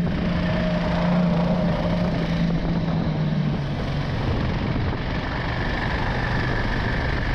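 Homemade snowmobile's 20-horsepower engine running under way, with rough wind noise on the microphone; the engine note drops lower a little past halfway.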